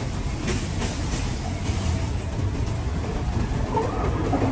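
Steady low rumble of a car on the move.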